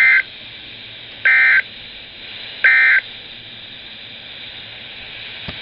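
NOAA Weather Radio SAME end-of-message data tones: three short bursts of warbling two-tone digital code, about a second and a half apart, signalling the end of the alert message. Steady radio hiss lies underneath.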